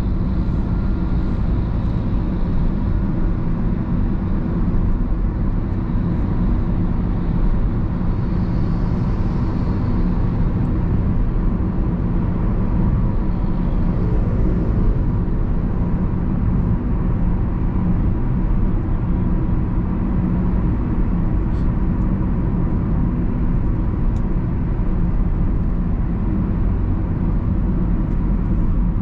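Honda Civic with a 1.8 i-VTEC engine driving steadily: an even, low drone of engine and road noise with no change in revs.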